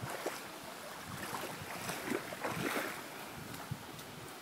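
Fast-flowing floodwater rushing and churning along a flooded track, a steady wash with a few faint splashes in the middle.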